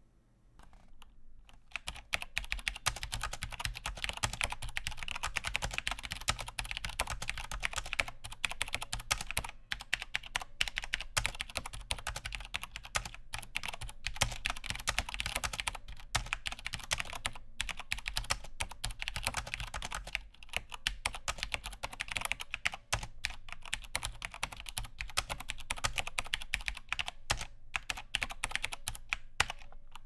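Typing on a Cherry G80-5000 split ergonomic keyboard with Cherry MX Brown tactile switches. A fast run of keystrokes starts about a second and a half in and goes on with short pauses between bursts.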